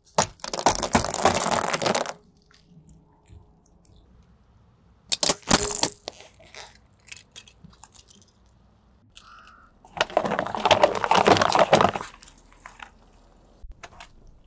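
A car tyre crushing brittle objects on asphalt, hollow chocolate eggs and plastic toy pieces, with crackling crunches. There are three bouts: about two seconds at the start, a short one around five seconds in, and about two seconds more near ten seconds in.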